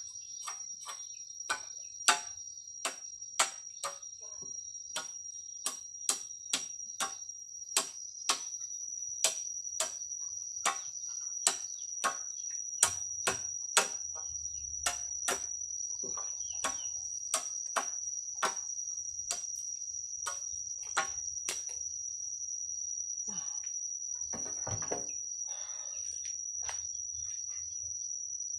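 Machete chopping a bamboo pole: sharp strikes about one and a half a second that stop a little past two-thirds of the way through, with a longer scraping rustle shortly after. A steady high insect drone runs underneath.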